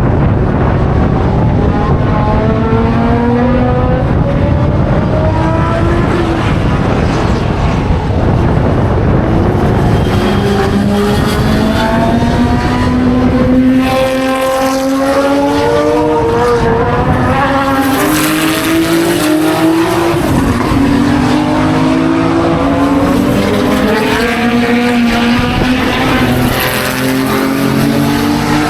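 Historic racing cars accelerating hard, engines revving up through the gears: the pitch climbs, drops at each shift and climbs again, over and over. For a stretch in the middle more than one car is heard at once.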